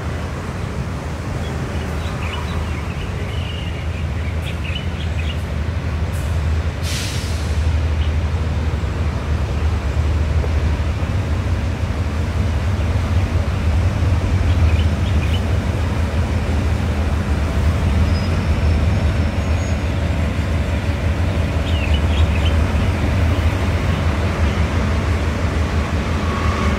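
Hitachi 8FA-36C diesel-electric locomotive running with a steady low rumble as it draws its passenger train slowly along the platform, growing louder as it comes closer. A short hiss of air sounds about seven seconds in.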